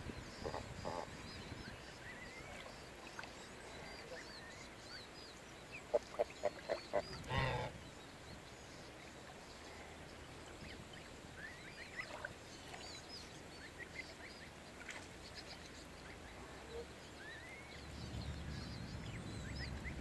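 Domestic geese calling from the water: a quick run of about six short honks around six to seven seconds in, with two brief calls near the start. Thin, high peeping from the goslings is scattered throughout.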